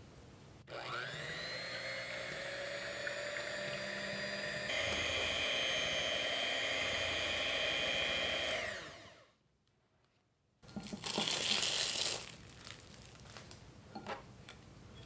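Electric hand mixer whirring, its pitch rising as it spins up, stepping up to a higher speed about five seconds in, then winding down and stopping. After a short pause comes a brief, loud noisy burst, followed by a few small clinks.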